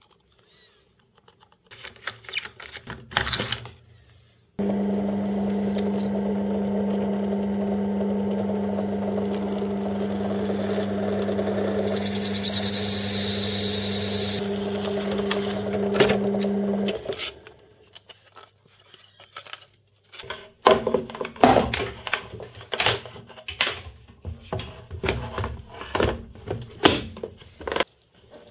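Drill press starting up and running steadily with a low hum for about twelve seconds, its bit cutting into a Perspex sheet for a couple of seconds with a high hiss before the motor stops. Afterwards, a run of sharp knocks and clatter from Perspex pieces being handled and set into place.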